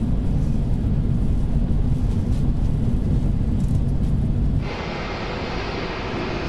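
Airbus A380 on its landing roll with reverse thrust selected: a deep, steady rumble and rattle inside the cockpit. About four and a half seconds in it changes abruptly to the jet's hissing engine noise heard from outside, quieter and without the deep rumble.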